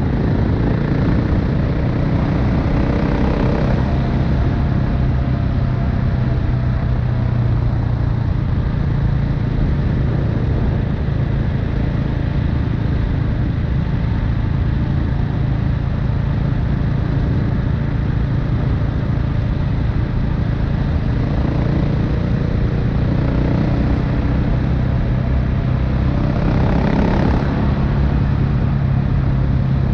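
KTM 690 Enduro R's single-cylinder engine and exhaust running steadily under way, its pitch rising and falling a little in the first few seconds and again in the last third.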